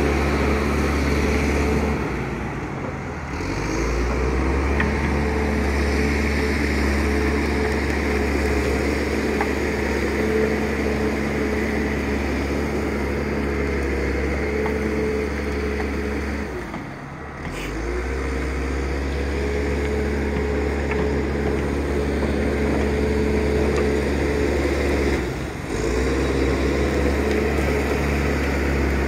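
Diesel engine of heavy logging machinery running steadily with a constant low hum. The level dips briefly three times, about three seconds in, about seventeen seconds in and near the end.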